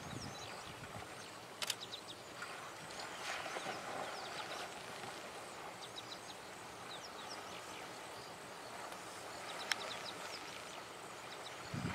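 Bushveld ambience: many short bird chirps over a steady hiss, with two sharp clicks, one early and one near the end.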